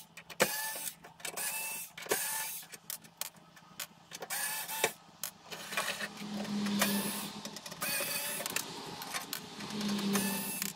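Small cordless electric screwdriver whirring in two short runs, about six seconds in and again near the end, backing screws out of a diesel heater's casing. Before that come light clicks and knocks of hard plastic parts being handled.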